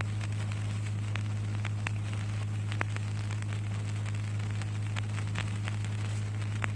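Background noise of the recording during a pause in Quran recitation: a steady low hum with scattered faint crackles and clicks.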